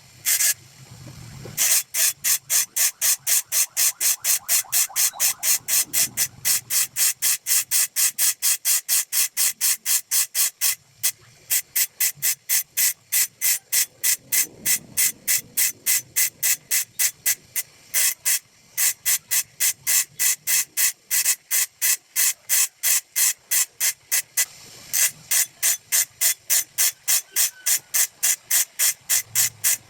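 A hand file stroking across the teeth of a hole saw to sharpen it: quick rasping strokes, about three a second, stopping briefly a few times.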